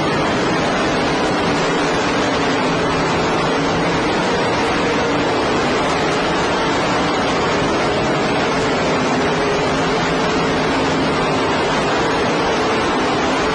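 A pack of sprint cars racing, heard as a constant distorted wash of engine noise with a faint steady engine tone underneath; the recording is overloaded and of poor quality.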